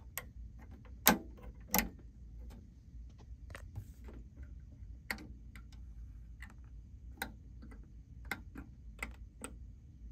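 Clicks from the front-panel buttons and switches of an Onkyo TA-R22 cassette deck as they are pressed. The two loudest come about one and two seconds in, followed by lighter, irregular clicks about every second.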